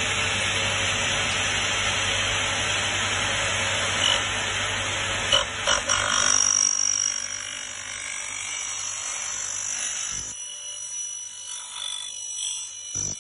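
KD 305 portable miter saw cutting through a window profile: loud steady cutting noise over the motor's hum for about six seconds, with a few sharp clicks near the end of the cut. The sound then drops, a high ringing tone lingers, and the motor hum stops about ten seconds in as the blade runs down.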